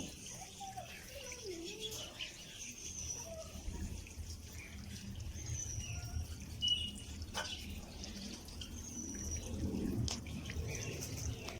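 Scattered short bird chirps and a few lower gliding calls, heard over a steady low rumble.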